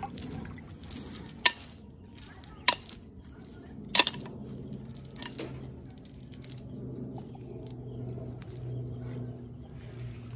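Live fish flapping in a mesh net and a pot of water: four sharp wet slaps about a second apart, the loudest about four seconds in.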